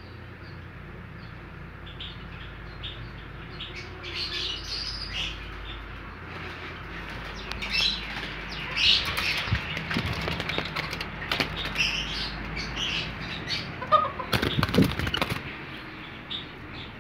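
Small birds chirping, with a spell of wing flapping and fluttering in the second half, loudest a couple of seconds before the end.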